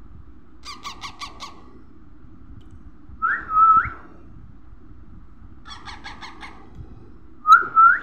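Baby parrot calling: a quick run of about five short chirps, then a loud rising squawk, the pattern given twice. The squawks are the loudest sounds.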